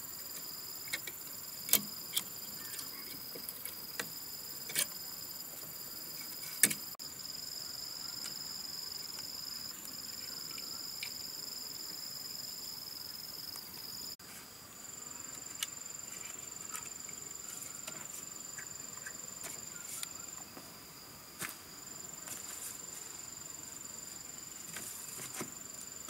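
Insects buzzing in steady high-pitched tones, with a few sharp knocks in the first several seconds as bamboo poles are fitted together.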